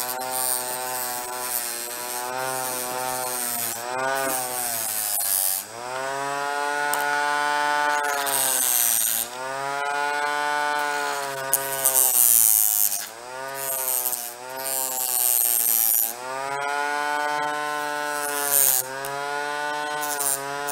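Dremel rotary tool running with a polishing bit pressed against the chrome spout of a soap dispenser pump. The motor's whine sags in pitch and recovers several times as the bit is pushed onto the metal, with bursts of high hissing rub from the bit on the surface.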